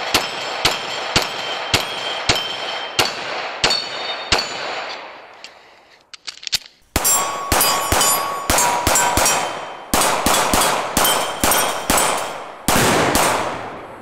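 A 9mm pistol fired in two strings of quick shots, about two a second, with steel targets ringing after the hits; the firing pauses for about two seconds midway.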